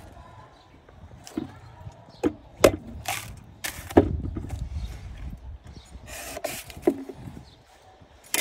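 Heavy cleaver chopping a young green coconut on a wooden board: an irregular series of sharp chops and knocks, loudest about two and a half and four seconds in, with a couple of short rasping cuts through the husk.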